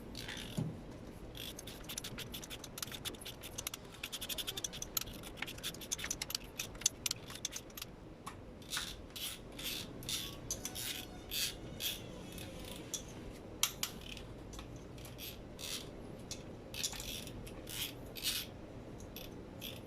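Metal hand tools and engine parts clinking, tapping and scraping during work on a Toyota Vios 1NZ-FE cylinder head, with a quick run of clicks about four seconds in.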